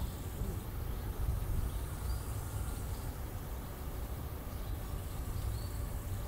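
Outdoor ambience: a steady low rumble of wind on the microphone, with a faint short bird chirp about two seconds in and again near the end.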